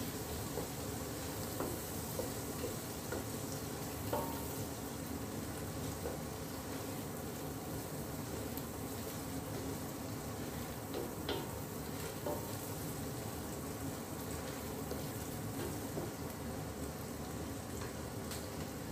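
Chopped onions frying in desi ghee in a stainless steel pot, sizzling steadily as a wooden spatula stirs them, with a few sharp knocks of the spatula against the pot.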